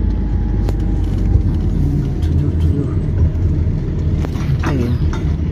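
Converted camper van driving along a road, heard from inside the cab: a steady low rumble of engine and road noise.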